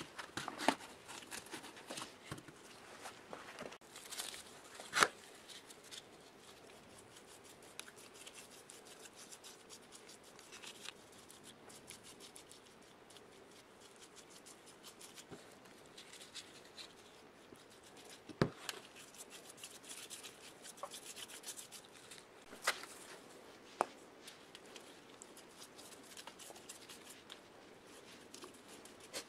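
Faint scratching and dabbing of a paintbrush working paint-stripping gel onto rusty metal air-compressor parts, with a few sharp knocks scattered through as the parts and bowl are handled.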